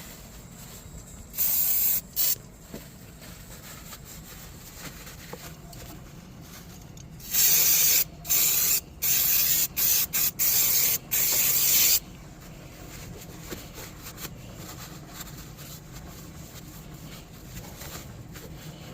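Aerosol can of universal cleaner spraying in short hissing bursts onto a car door check strap to dissolve the old grease: two bursts about a second and a half in, then a quick run of about seven bursts in the middle.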